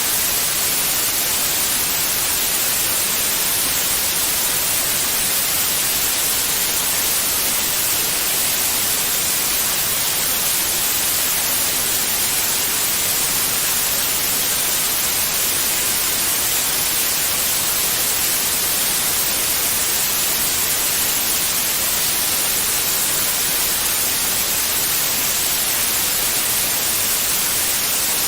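Steady white noise: an even, unchanging hiss, strongest in the high frequencies, used as a sleep sound for babies.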